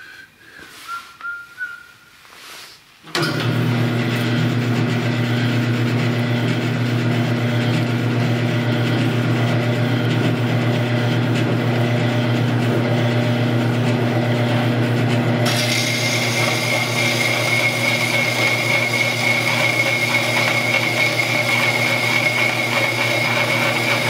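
Delta 14-inch bandsaw, slowed through a jackshaft to cut metal, switched on about three seconds in and running with a steady hum. About halfway through, its blade starts cutting steel angle iron, adding a steady high whine.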